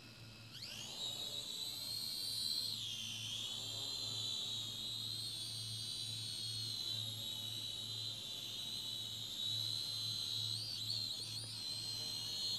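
Syma X5UW toy quadcopter's four small motors and propellers whining as it spins up and lifts off, the pitch rising quickly in the first second. It then flies with a steady high whine that dips once and wavers as the throttle shifts in gusty wind.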